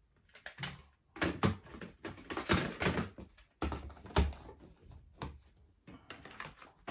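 Small camping items being handled and set down: an irregular run of clicks, knocks and rustles, with a heavier thud about four seconds in.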